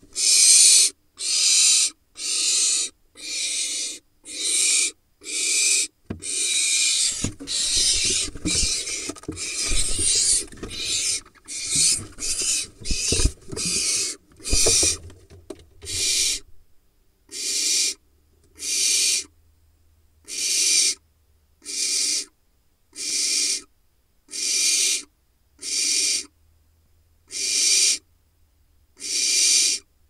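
Barn owl nestling's hissing food-begging calls, repeated about once a second. Each call is a harsh, rasping hiss about half a second long. During the first half, scuffling and knocks come from the owls moving on the nest litter in the wooden box.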